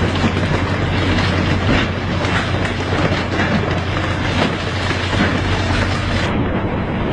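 Freshly landed tuna thrashing in a bin, their tails drumming in rapid knocks against its sides. A steady low engine hum runs underneath and stops near the end.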